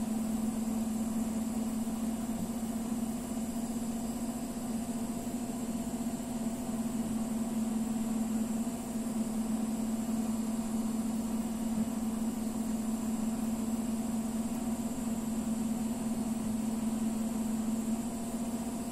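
A steady machine hum, low and unchanging, with a faint high-pitched whine above it.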